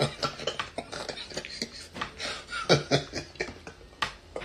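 A man laughing in short, uneven spurts, without words.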